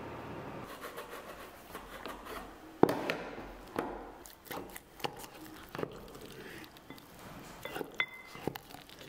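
Thin wooden stick stirring thick sourdough starter in a glass jar: scraping with irregular knocks and clinks of wood on glass. The loudest is a sharp knock about three seconds in, with a quick cluster near the end.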